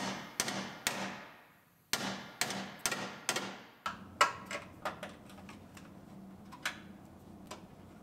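Hammer blows on a steel car frame rail, each strike ringing briefly: about eight in the first four seconds, then a few lighter taps. The buckled bottom of the frame rail is being pounded back down to straighten it.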